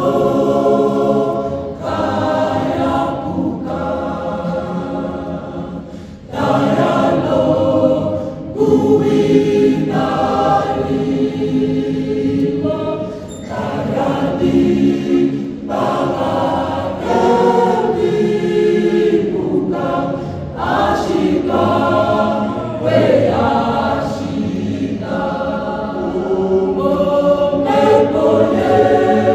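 A choir singing, many voices holding notes together in phrases with short breaths between them.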